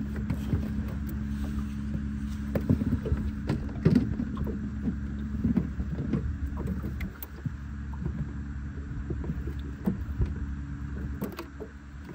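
Boat engine running with a steady low hum, under scattered light knocks and taps of a knife on a plastic cutting board as raw Spanish mackerel is sliced.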